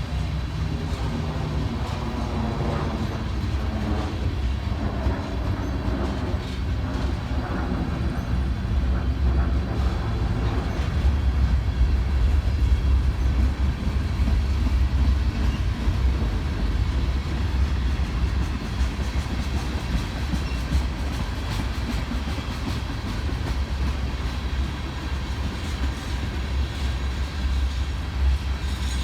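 Freight train rolling past: a steady low rumble of cars and wheels on the rails. In the first ten seconds or so a pitched whine slides downward, as it does when something passes by.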